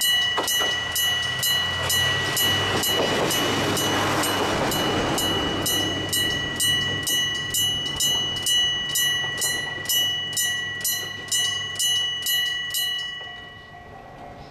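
Electric-gong level-crossing bell striking steadily, about two and a half strokes a second, while a diesel railcar passes with a low engine hum and a rush of wheel noise that swells and fades over the first few seconds. The bell stops abruptly about thirteen seconds in.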